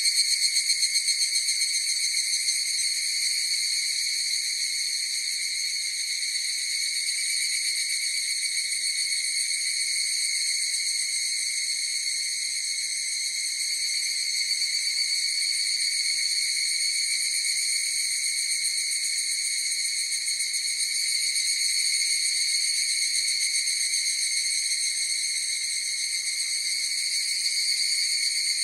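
Higurashi (evening cicadas) calling in chorus: a continuous, even, high buzzing trill with no breaks, gently swelling and fading in loudness.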